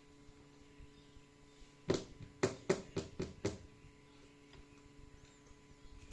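A quick run of about six sharp taps or clicks, starting about two seconds in and lasting under two seconds, over a faint steady hum.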